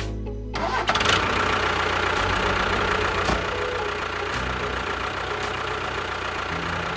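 An engine starting about half a second in, then running steadily.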